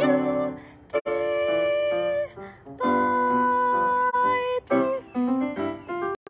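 A woman singing long held notes over piano accompaniment, two notes sustained for more than a second each with short breaks between phrases.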